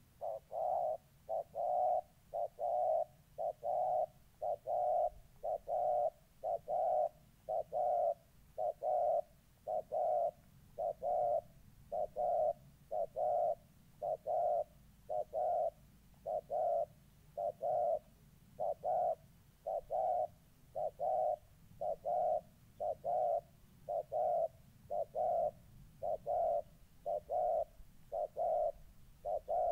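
Spotted doves cooing in territorial challenge, a wild dove against a caged decoy dove: a steady, unbroken run of short coos, a little more than one a second.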